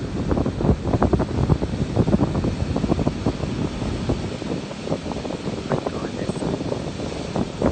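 Wind buffeting the microphone: an uneven low rumble with many short gusty pulses.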